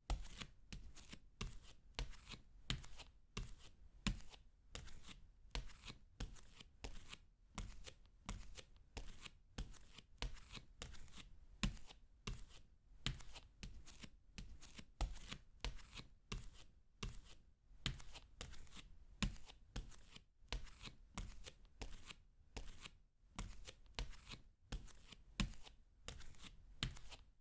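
Barefoot footsteps on a wooden floor: a long run of soft, low thuds, about one to two steps a second, with faint creaks and skin-on-wood rubs between them.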